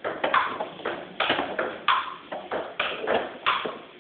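Table tennis rally: the celluloid ball clicking off the paddles and bouncing on the table, about three sharp clicks a second.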